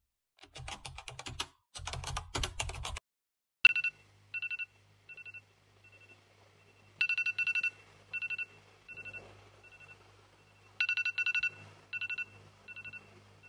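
Phone alarm ringtone sounding as short repeated beeps in a looping pattern that swells and fades, waking a sleeper. Before it starts, about three seconds of clicking.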